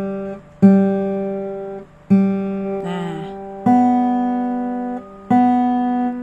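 Single open strings of a Deviser acoustic-electric guitar plucked one at a time while it is tuned against its built-in tuner. There are four plucks about a second and a half apart, each left to ring and fade. A note slides a little in pitch about three seconds in, and the later plucks are on a higher string.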